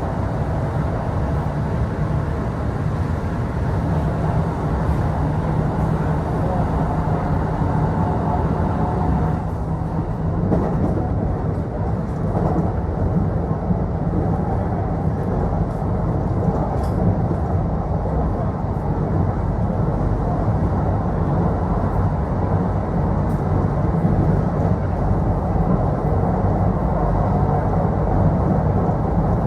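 Running noise heard inside a Kintetsu Osaka Line local electric train between stations: a steady rumble of wheels on rail with a low hum.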